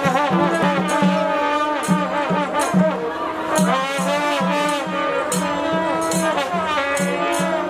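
Live traditional Newar ritual-dance music: a drum beating a steady pulse with clashing cymbals, under wavering, wailing notes from wind instruments.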